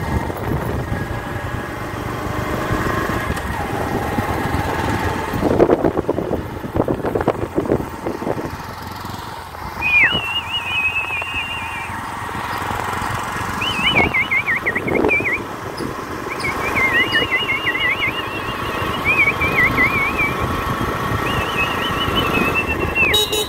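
Motorbike running along a road, with a cluster of knocks about six seconds in. From about ten seconds in, a high warbling whistle comes and goes several times over the engine.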